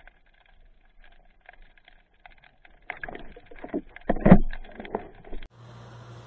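Underwater sound on a diver's camera: scattered small clicks and crackles, then a run of louder knocks and thumps from about three seconds in, the loudest a little after four seconds, as the camera and gear move about. A steady hiss with a low hum takes over near the end.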